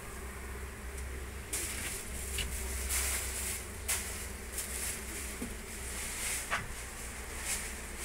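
An exposed honey bee colony buzzing steadily, with short noisy rustles over it from about a second and a half in.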